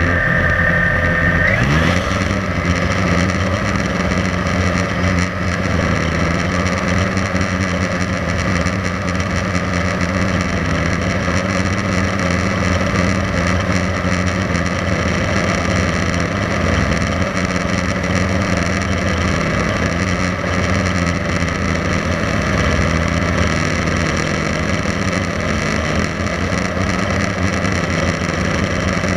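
Blade 350 QX3 quadcopter's brushless motors and propellers, heard close from the camera on the drone: spinning steadily on the pad, then spooling up in a rising whine about two seconds in as it lifts off, then a steady buzzing hum in flight.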